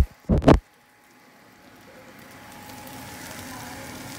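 Two loud thuds in quick succession right at the start, like the phone's microphone being knocked or handled, then a gap of dead silence and a steady faint hiss that slowly fades back in.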